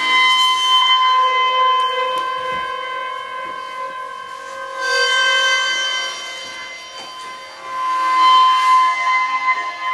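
Experimental chamber music: a flute holds long notes that swell and fade three times over other quiet held tones.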